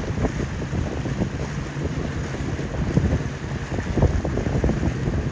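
Wind buffeting the microphone in irregular gusts, over the low drone of a fishing party boat's engines and the churn of choppy waves.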